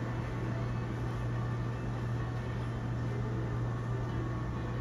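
Steady low hum under a faint even hiss: the room ambience of a cruise ship's casino.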